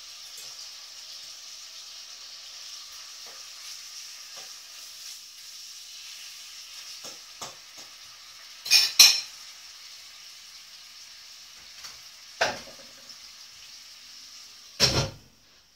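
Food frying in a pan with a steady sizzle, broken by sharp clatters of cookware: two close together about halfway through, one a few seconds later and a louder one near the end, after which the sizzle stops.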